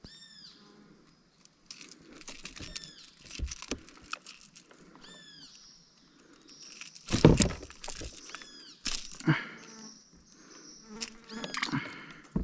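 Clicks, rattles and knocks of fishing pliers and a lip grip working a hooked artificial lure out of a fish's mouth, with a loud thump about two-thirds of the way through. A high chirping call of falling notes repeats every two or three seconds in the background.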